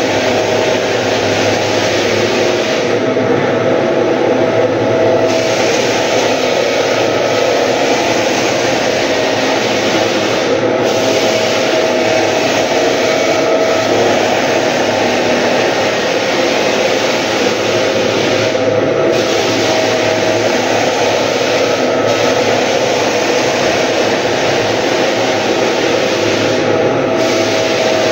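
Drum floor sander running steadily as it sands a wooden floor: a loud, even motor and grit noise with a constant hum in it, the hiss dipping briefly a few times.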